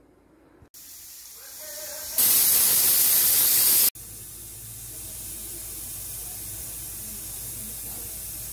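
Aluminium stovetop pressure cooker whistling as steam escapes past its weight valve: a hiss builds for about a second and a half, then a loud whistle-hiss lasts about two seconds and stops suddenly. A steadier, quieter hiss of steam follows.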